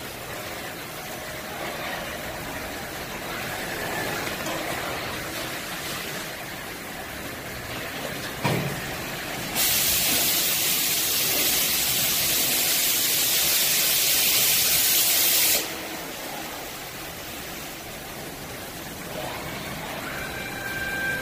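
Steady running of a robotic palletizing line. A sharp knock comes about eight seconds in, then a loud hiss of compressed air for about six seconds, which cuts off suddenly.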